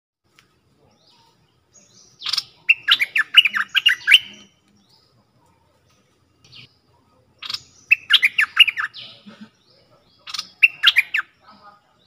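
A caged bulbul (merbah lekir) singing in three short bursts: about two seconds in, about seven and a half seconds in, and just after ten seconds. Each burst is a quick run of bright chattering notes, and the first is the longest. It is a newly caught bird being tried as a decoy, singing readily in a soft voice.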